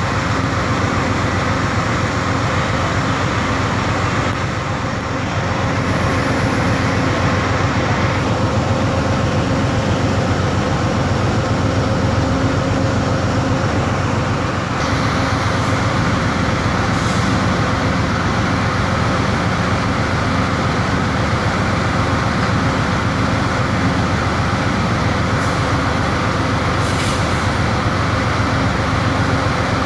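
Amtrak passenger train standing at the platform, its equipment giving off a steady loud hum over a low rumble.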